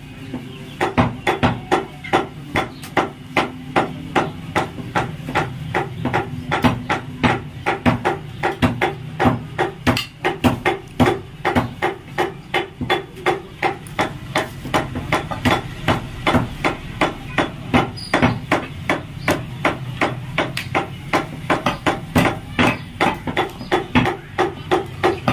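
Butcher's cleaver chopping goat meat on a wooden log chopping block: a steady run of regular chopping strikes, about two or three a second.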